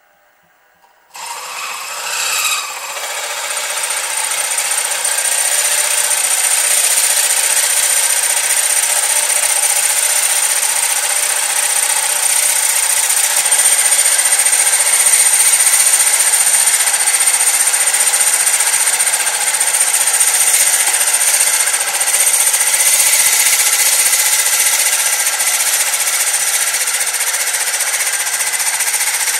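Milling machine starting up about a second in and running steadily, its boring head taking the final cut in the 1 3/8-inch high-pressure cylinder bore of a model traction engine's cylinder block. The sound is a loud, even machining noise with a thin high whine, and it builds over the first few seconds as the cut settles in.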